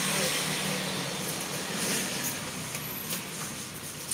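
Steady background noise like road traffic, with a low engine hum that fades out about a second in, and a few light clicks as garlic bulbs are picked through by hand in a plastic basket.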